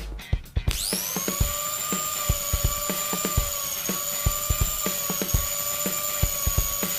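Arbortech mini grinder spinning up about a second in, its whine rising quickly to a steady high pitch. It then runs with the Mini Turbo plane blade cutting wood, with irregular sharp ticks as the blade takes the cuts.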